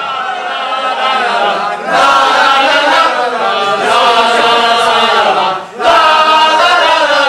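A group of voices chanting together in unison, in loud sung phrases with two short breaks between them.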